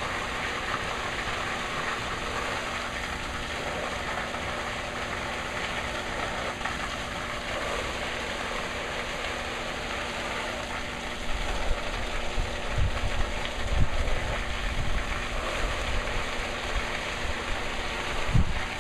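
Rain simulator's sweeping spray nozzles running at 11 inches per hour: a steady hiss of water spraying and falling onto a wet concrete pad, with a faint steady hum under it. From about eleven seconds in, an irregular low rumble joins.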